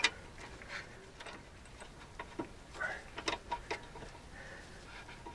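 Scattered light metallic clicks and ticks of a spanner working the bolts of a brake caliper as it is refitted, with a sharp click at the start.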